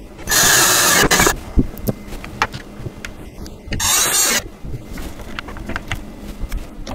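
Cordless drill driving bolts into the changing table's frame: two runs of the motor, the first about a second long, the second about half a second, with clicks and knocks of handling between and after.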